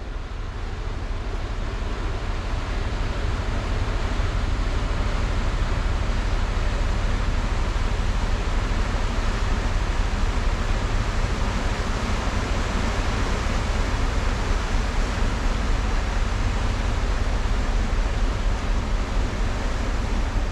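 Container ship passing close by: a steady low engine rumble under the rushing wash of its bow wave, growing louder over the first few seconds and then holding.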